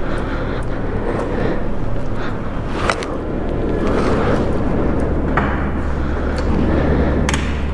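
Harley-Davidson Street Rod 750's V-twin engine running at low speed as the bike creeps along, a steady low rumble that grows louder about five seconds in. A few sharp clicks sound over it.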